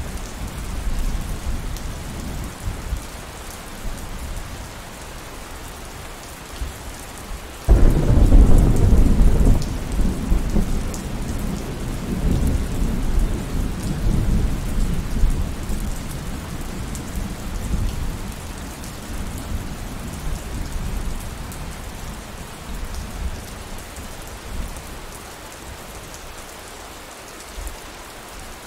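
Steady rain falling, with a sudden thunderclap about a quarter of the way in that rolls on as a low rumble and fades away over the next ten seconds or so.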